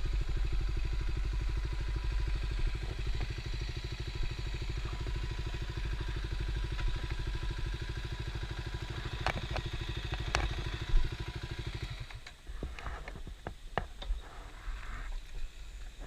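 Kawasaki KLX250's single-cylinder engine running at a steady idle with an even, rapid pulse, shut off about twelve seconds in. A few sharp clicks come just before it stops, and scattered light clicks and knocks follow.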